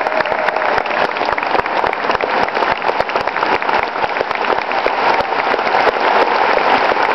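Large audience applauding steadily: a dense, even patter of many hands clapping.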